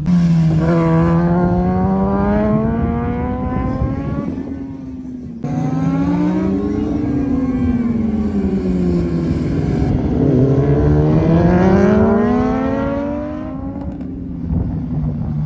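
Superbike engine revving hard on the race track. Its pitch climbs and falls several times with the throttle, breaks off sharply about five seconds in, then climbs again.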